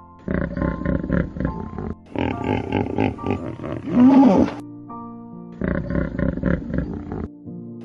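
A big cat roaring in three loud bouts over background music, the strongest call about four seconds in.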